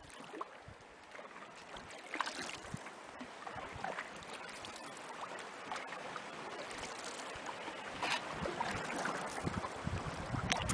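Canoe paddling on calm lake water: soft paddle splashes and drips every second or two.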